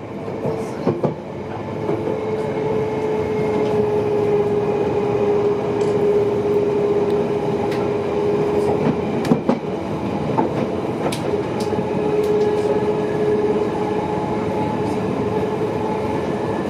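London Underground train running, heard from inside the carriage. A steady whine sits over the running noise, and the wheels click over rail joints and points. It grows louder over the first few seconds.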